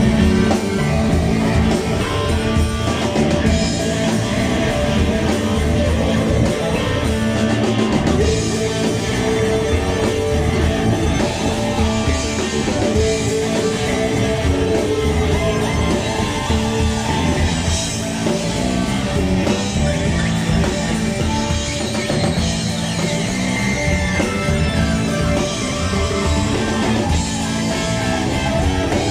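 Rock band playing live, with electric guitar, keyboards and drums.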